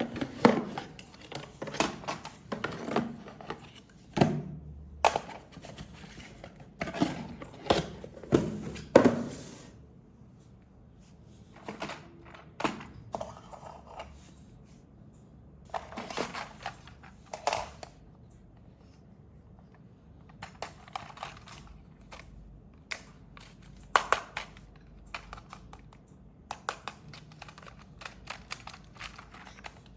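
Hands handling plastic toy parts and packaging: irregular knocks, clicks and taps with short bursts of crinkling and rustling, busiest in the first ten seconds and again in the second half.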